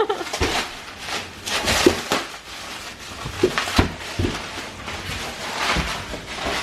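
Packaging being unwrapped by hand: irregular crinkling and rustling of wrapping, with a few soft knocks.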